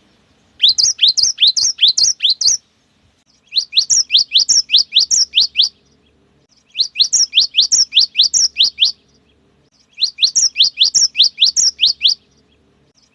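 Cinereous tit (gelatik batu) singing its fast 'wucit wucit' song: four bouts of sharp, high, quickly repeated notes, each about two seconds long with short pauses between.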